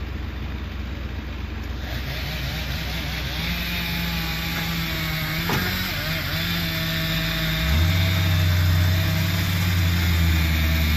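An engine running steadily, stepping up to a louder, higher note about eight seconds in. A single sharp crack about halfway through.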